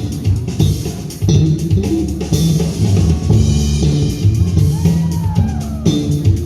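Electric bass guitar playing a solo, a fast run of low notes, with a drum kit keeping time behind it.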